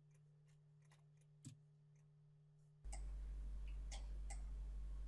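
Near silence, then a low steady hum comes in about three seconds in, with a few faint computer-mouse clicks.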